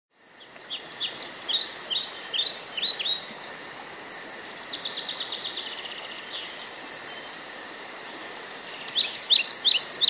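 Songbirds singing: series of short, quick falling chirps, a rapid trill about halfway through, and the chirps returning louder near the end, over a steady hiss of background noise.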